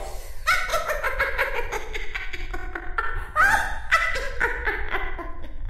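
A woman's cackling witch laugh: two runs of rapid, pulsed 'ha-ha' laughter, each falling in pitch, the first about half a second in and the second about three seconds in.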